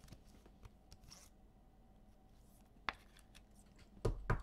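Trading cards being handled: faint rustling and sliding, with a sharp click about three seconds in and two more close together near the end.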